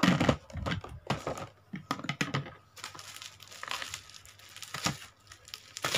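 Toy packaging being handled: irregular crinkling and rustling of boxes and wrapping, loudest right at the start.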